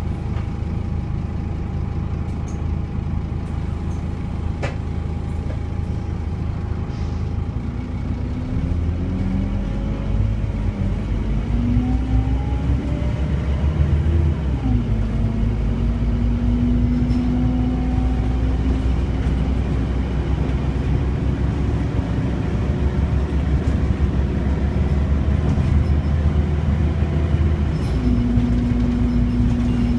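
Scania OmniCity double-decker bus engine heard from inside the lower deck. It runs steadily at low revs at first. From about eight seconds in the note climbs as the bus accelerates away, drops at a gear change about fourteen seconds in, then holds steady, and shifts again near the end.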